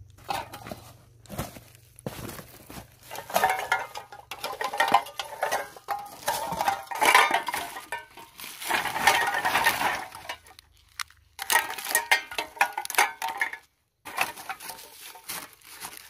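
Tin cans and metal junk clattering and clinking as they are stirred and shifted about, in irregular bursts with a couple of short pauses.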